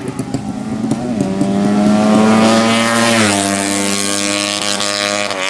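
A 200cc drag-race motorcycle engine running at high revs, its note climbing slightly and getting louder, then dropping sharply in pitch about three seconds in and holding there.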